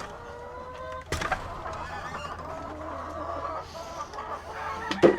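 Hens clucking and calling in a chicken coop, with a sharp knock about a second in and a louder one near the end.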